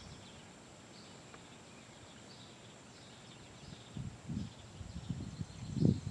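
Quiet outdoor creek-side ambience: a faint steady high-pitched insect drone with faint distant bird chirps. From about four seconds in, low irregular rumbling bumps on the microphone, the loudest near the end.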